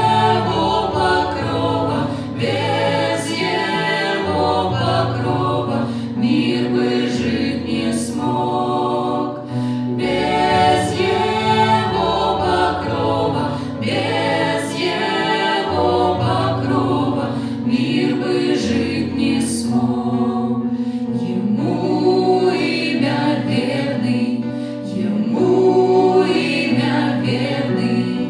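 Mixed group of women's and men's voices singing a hymn in harmony through microphones, over electronic keyboard accompaniment with long held bass notes.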